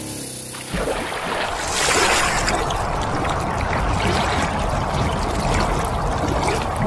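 Rushing, splashing water sound effect that starts suddenly under a second in and runs on loud and steady. Just before it, the faint hum of the mini lathe's small DC motor fades out.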